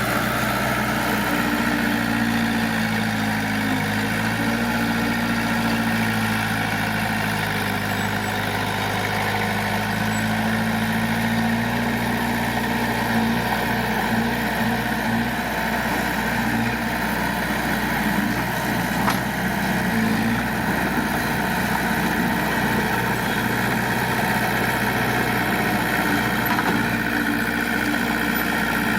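Heavy earthmoving machine's diesel engine running steadily at low revs, its pitch dipping slightly a few seconds in.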